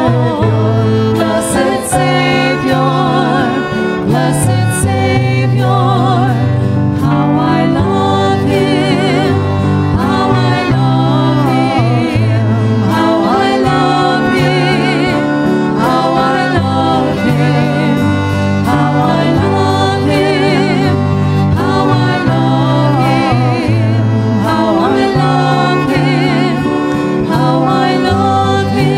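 Two women singing a worship song into microphones, accompanied by two violins, with sustained low notes underneath that change every second or two.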